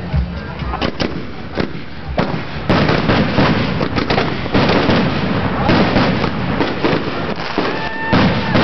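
Skyrocket fireworks going off: a rapid, irregular string of sharp pops and crackles that grows denser and louder about three seconds in.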